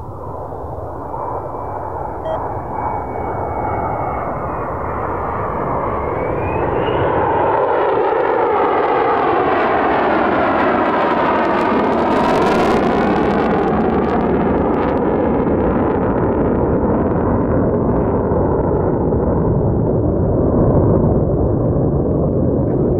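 Jet engine noise from F-35 Lightning II fighters on a gear-down formation approach. It builds over the first several seconds, with a thin whine that rises about six seconds in. The nearest jet passes close about halfway through, with a sweeping, phasing whoosh, and the loud rumble carries on as it moves away.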